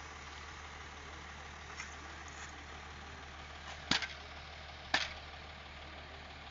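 A steady low hum with two sharp knocks about a second apart, just past the middle, from work at a block-making site.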